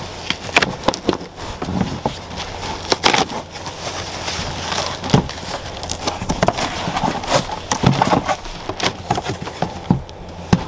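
Cardboard shipping box being opened by hand: its flaps pulled up and folded back, giving irregular crackling, creasing and scraping of the cardboard.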